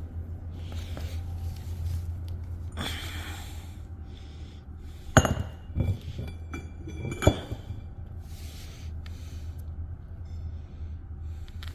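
Metal clinking: three sharp strikes with a short ringing after each, a little past the middle, over a steady low hum.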